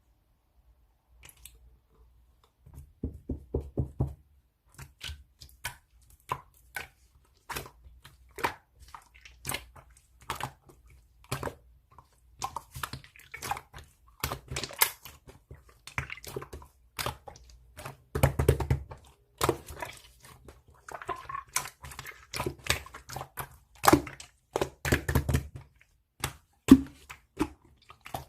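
Irregular series of short taps, clicks and knocks close to the microphone, with a few denser clusters.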